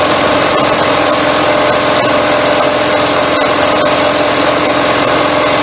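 Small engine running steadily at raised throttle, spinning the jet pump's drive shaft and sprocket while sandpaper is held against the shaft to sand down a glassed-on collar. The engine is being used as a makeshift lathe. The sound is loud and even throughout.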